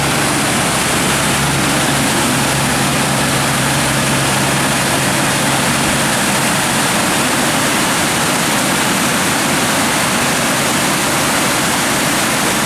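Waterfall rushing: a loud, steady wash of falling water, with a low hum underneath that fades out about halfway through.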